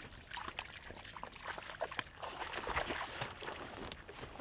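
Shallow pond water splashing and trickling in many small, irregular splashes.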